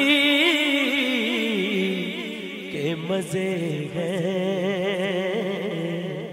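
Unaccompanied Urdu naat: male vocal holding a long, wavering melismatic line with reverb, moving to a lower note about halfway through and fading toward the end.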